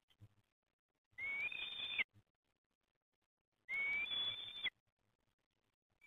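Black kite giving two high whistled calls, each about a second long and slightly rising, the second about two and a half seconds after the first.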